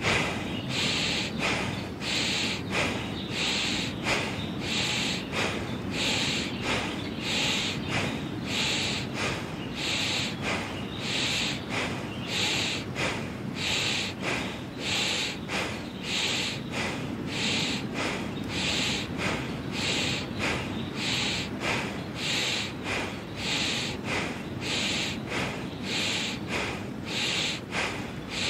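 Bhastrika (bellows breath): rapid, forceful breaths in and out through the nose, each a short hissing puff, repeated in an even, steady rhythm.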